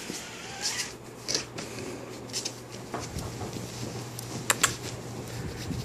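Rustling of fabric and handling, with scattered light clicks and two sharp clicks about four and a half seconds in. A low steady hum runs underneath from about two seconds in.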